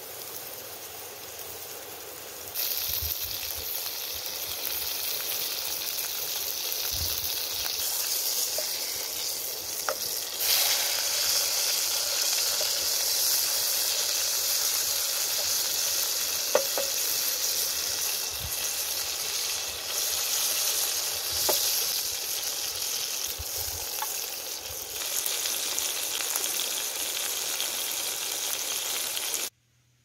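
Ground mutton-and-beef burger patty sizzling in hot oil in a frying pan, the sizzle growing louder about two and a half seconds in and again about ten seconds in. A wooden spatula taps the pan a few times, and the sizzle stops abruptly near the end.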